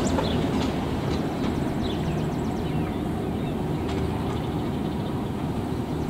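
Steady low outdoor rumble with a few short bird chirps.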